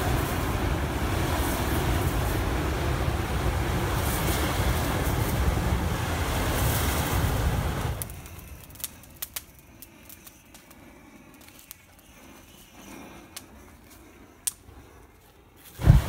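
Flamethrower with a backpack fuel tank firing a long jet of flame, a steady loud rush. About eight seconds in the jet stops, leaving the burning pallet's quiet crackle with scattered pops, and just before the end it fires again with a loud low whump.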